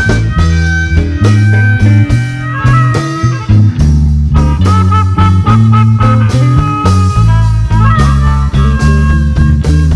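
Live electric blues band playing an instrumental break between vocal verses, with amplified blues harp (harmonica) holding and bending notes over electric guitars, bass and drums.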